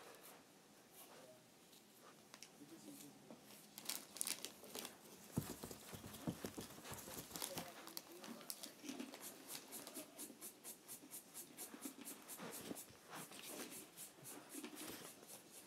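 Knitted blanket rustling and brushing close to the microphone as it is handled and shaken out, with many small scratchy clicks and a few soft bumps around the middle.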